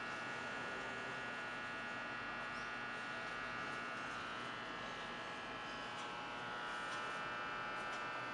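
A steady electrical buzzing hum with many even tones, unchanging in level.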